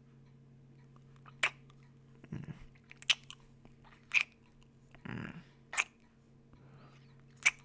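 Kisses on a close microphone: five sharp lip smacks spaced one to two seconds apart, with soft breaths between some of them.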